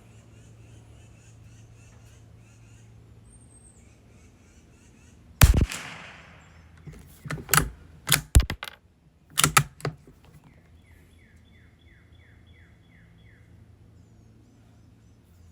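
Savage Mark II .22 rimfire rifle firing once about five seconds in, a sharp crack with a short ring. Then come several quick metallic clicks as the bolt is worked to eject the case and chamber the next round. A second shot cracks right at the very end.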